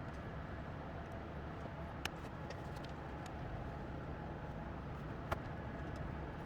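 Two short, sharp clicks, about two seconds apart, over a steady low background hum.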